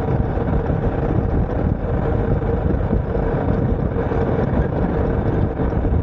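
A vehicle running steadily on the move: constant engine and road rumble with a faint steady hum.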